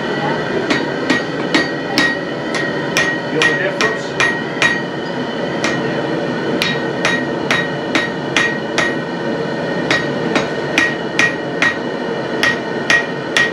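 Hand hammer striking metal on an anvil in a quick, uneven rhythm of about two to three blows a second, each blow leaving a high metallic ring; the hammering pauses briefly around the middle.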